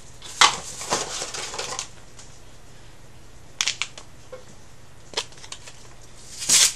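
Small handling sounds of mint tea being made: a sharp click about half a second in, a second of rustling, then a few scattered clicks and a short hiss near the end.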